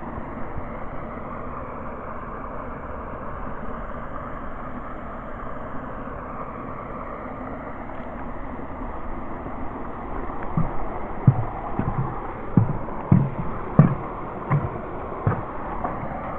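A steady hiss, then, about ten seconds in, a run of about eight low thuds, roughly three every two seconds: a hiker's footsteps on the trail.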